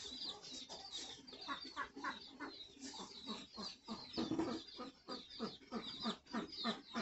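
Chickens clucking in short calls, a few a second, with small birds chirping high above throughout.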